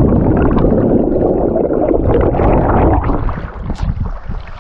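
Water churning and gurgling around a person who has just jumped off the boat into the sea; loud at first, then dying away after about three seconds.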